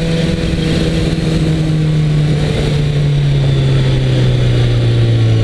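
2010 BMW S1000RR's inline-four engine running on a steady note that slowly falls in pitch as the bike slows, with a rush of wind noise underneath.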